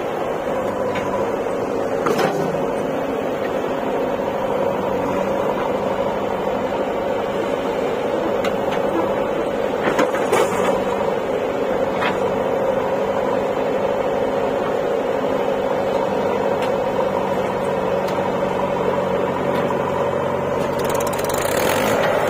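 Diesel engine of a JCB 3DX backhoe loader running steadily under load while the backhoe works, with a tractor's diesel engine alongside and a few faint knocks. Near the end the engine noise rises as a tractor revs up to pull away.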